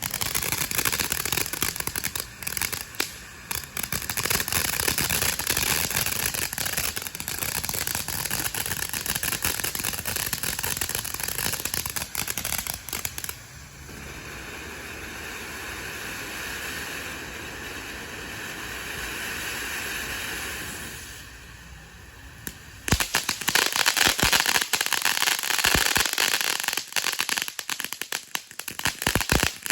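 Consumer firework going off with a dense, rapid crackling for the first dozen seconds, easing into a quieter steady hiss midway, then breaking into loud crackling again about three-quarters of the way through.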